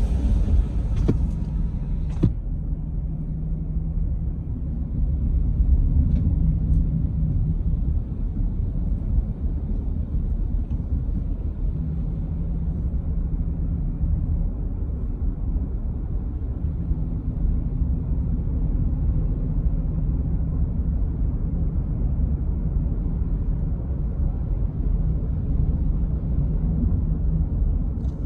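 Steady low rumble of engine and tyres in a moving car, with a faint engine hum running under it.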